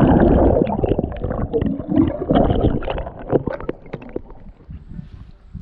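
Water sloshing and gurgling around a canoe, with short knocks of paddles against the hull. It is loudest at the start and fades away over the last couple of seconds.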